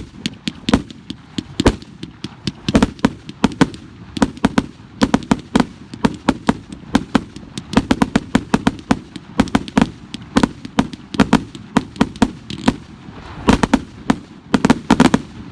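Consumer fireworks going off: a dense, irregular string of sharp bangs and pops, several a second, stopping just before the end.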